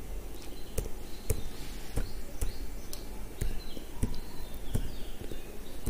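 A series of sharp clicks or knocks at uneven intervals, about two a second, over a low steady background rumble.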